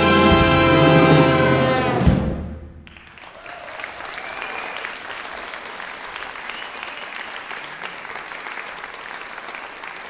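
Concert wind band of brass, woodwinds, percussion and electric bass holding a loud final chord, cut off about two seconds in with one last accented hit that rings briefly in the hall. Then the audience applauds steadily.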